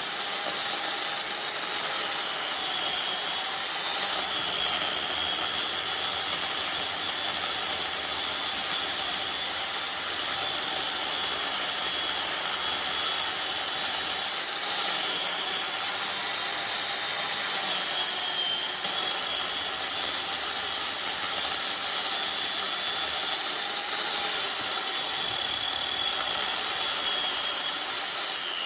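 Handheld power tool running continuously with a steady high whine, its pitch dipping briefly now and then.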